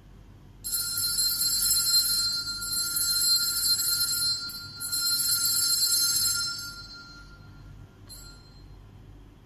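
Altar bells rung for the elevation of the consecrated host at Mass. There are two high, shimmering peals, the first for about four seconds and the second for about two seconds, before the ringing dies away.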